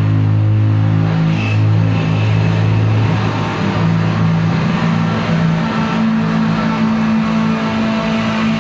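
Heavily distorted electric guitar drone played through a large PA, a dense, loud wall of sustained low notes and noise. About halfway through, the lowest note drops away and a higher held note takes over.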